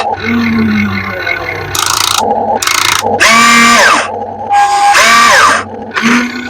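RC excavator's electric motors whining in a series of short bursts as it moves, the pitch climbing then dropping with each run.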